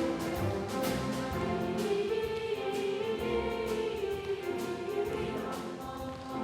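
Live orchestra playing with a boys' and girls' choir, a sustained note held through the middle.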